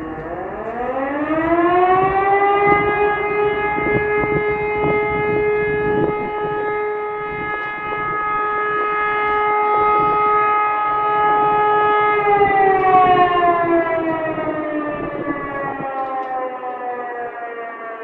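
Civil defense siren on its monthly test: it winds up in pitch over the first couple of seconds, holds one steady tone for about ten seconds, then winds down slowly toward the end.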